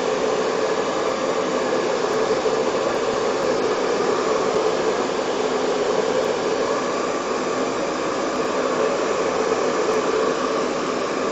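Hand-held hot-air dryer running at a steady setting, a constant rush of air with a hum in it, blown close onto wet sculpting paste to dry it.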